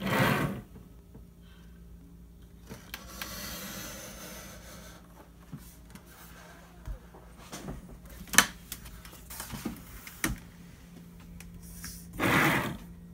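Fletcher mat cutter's cutting head sliding along its steel guide rail as the blade cuts through mat board. A loud scraping rush comes at the start and again near the end, with a softer hiss in between and several sharp clicks in the middle.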